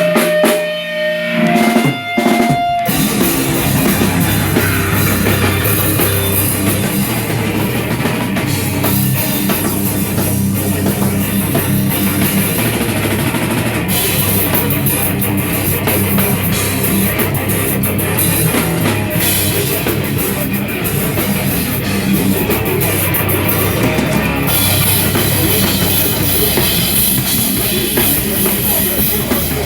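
Live heavy rock band: a few ringing guitar notes with short breaks, then about three seconds in the full band comes in with drum kit and distorted guitars playing loud and steady.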